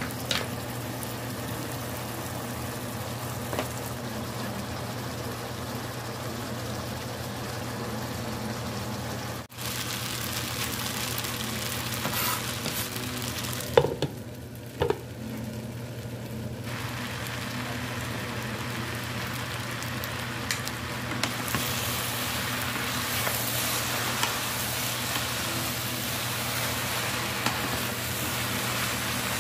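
Sliced meat, then vegetables and glass noodles, sizzling and frying in a nonstick pan while being stirred with a wooden spatula, over a steady low hum. About halfway through a glass lid clinks twice against the pan, and the sizzle gets brighter and louder after that.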